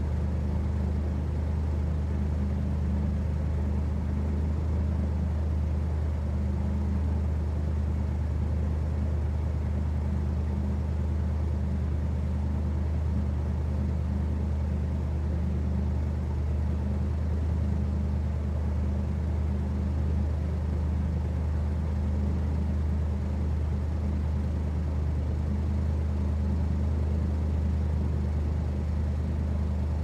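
Hovercraft engine and fan running at a steady speed, a constant low hum with no change in pitch or loudness.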